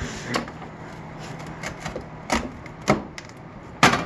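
Several sharp knocks and clatters at uneven intervals, the loudest near the end, as hands work a tub of ice cream loose from a snow-packed, frozen window frame.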